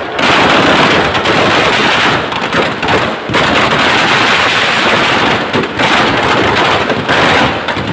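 Firecrackers packed inside a burning effigy going off in rapid, almost continuous strings of bangs like machine-gun fire, easing briefly a few times.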